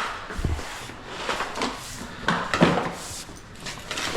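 A dull thud, then several short knocks and clatters of a heavy flooring roll and dolly being handled.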